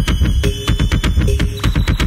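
Background music with a fast, steady beat and heavy bass.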